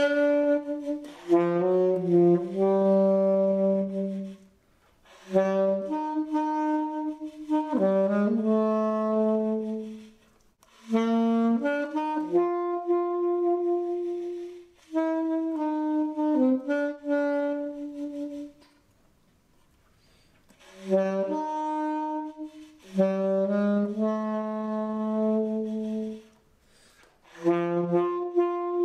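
Schagerl Superior alto saxophone in vintage bronze, fitted with a Tone King mouthpiece and a Vandoren V16 2.5 reed, played solo in phrases of held notes. There are short pauses between phrases, and a longer break of about two seconds a little past the middle.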